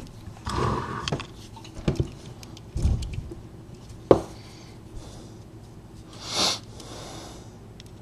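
Handling noises of lock-picking tools, a tension wrench and pick, being brought to a brass deadbolt cylinder clamped in a vise and set into its keyway: scattered light scrapes and metal clicks, with one sharp click about four seconds in. A short rushing sound follows about six and a half seconds in.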